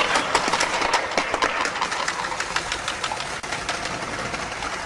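Motorcycle engine running with a rapid, irregular ticking clatter.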